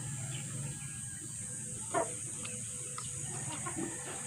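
Chickens clucking softly, with one short sharp sound about two seconds in and a few fainter ones near the end, over a steady high hiss.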